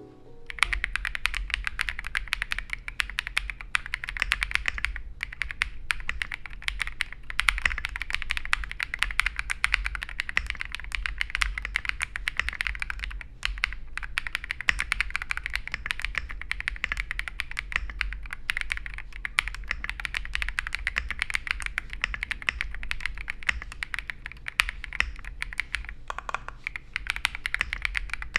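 Rapid, continuous typing on a KiiBoom Phantom 81 clear-cased mechanical keyboard: a dense run of key clicks with a couple of brief pauses.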